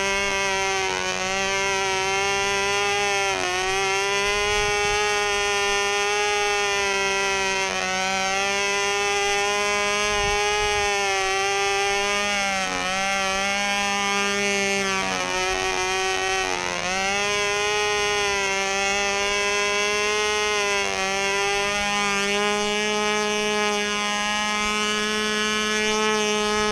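Fox .35 two-stroke glow engine on a control-line model plane running flat out in flight: a loud, high-pitched buzz whose pitch dips briefly and recovers every few seconds as the plane circles.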